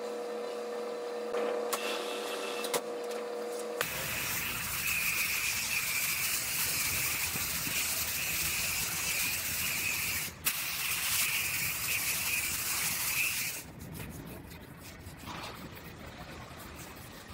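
A steady hum opens the clip, then a gravity-feed spray gun hisses for about ten seconds as it sprays primer, with one brief break. It ends in a quieter rubbing of a hand sanding pad on the painted fender.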